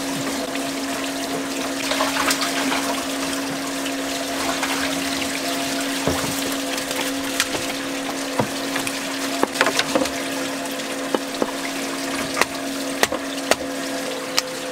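Boat machinery humming steadily, with water running, and irregular sharp clicks of a knife against a wooden cutting board as raw fish fillet is sliced.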